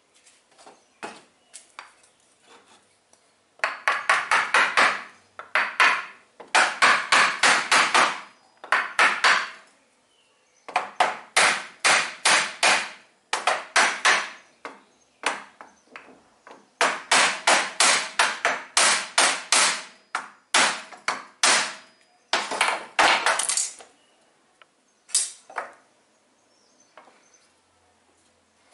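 Hammer striking in quick runs of blows, about five a second with short pauses between runs, tapping the steel rods of a pliers stand down into their wooden base. A few lighter single taps come near the start and near the end.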